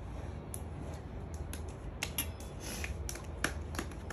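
Light, scattered clicks and taps, several a second and irregular, the loudest about two and three and a half seconds in, over a low steady hum.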